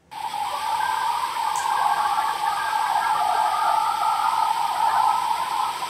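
Steady rushing hiss from a phone's overnight outdoor EVP recording being played back. It cuts in suddenly and holds at an even level, strongest in the middle range.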